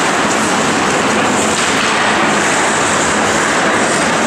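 Steady ice-rink noise during ice hockey play: skate blades scraping and hissing on the ice over a constant arena hum.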